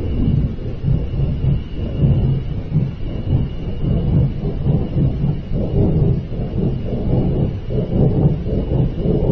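Loud, continuous low rumbling roar that swells and fades irregularly, like distant thunder, with a faint high steady whine underneath.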